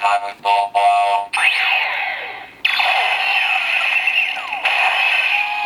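DX Kamen Rider Fourze Driver toy belt playing its electronic sound effects after its switch is pressed down. It starts with a quick run of pulsing beeps, about five a second, then gives sweeping synthesized glides and a sustained layered electronic tone.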